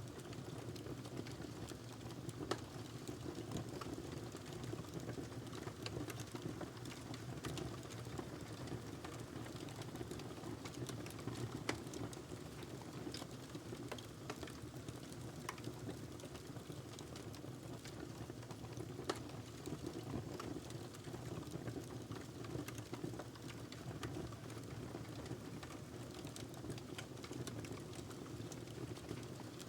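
Wood fire burning in a fireplace: logs crackling with frequent small pops over a steady low rumble of the flames, with a few louder pops.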